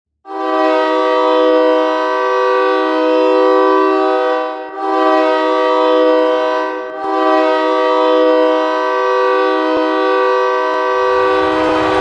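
Erie Otters hockey arena goal horn, a multi-tone chord horn, sounding three loud blasts: a long one, a shorter one, then another long one. Music comes in underneath near the end.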